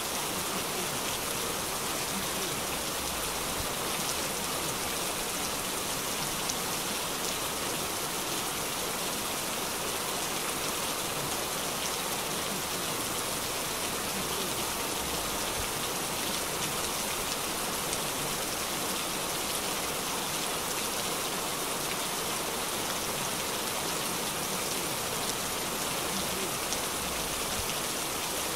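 Heavy rain pouring steadily onto a wet paved street, an even hiss of drops splashing with no breaks.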